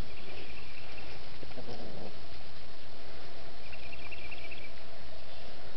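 A high, pulsing insect trill sounds twice, each about a second long: once at the start and again about two-thirds of the way through. Under it runs a steady low rumble on the microphone.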